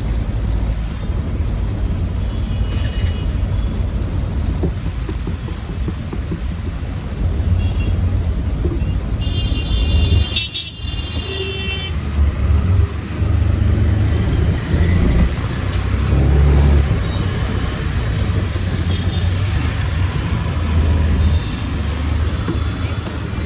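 City road traffic heard from a moving scooter: a steady low rumble of engines and road noise, with a vehicle horn sounding for about two seconds near the middle and a few shorter honks.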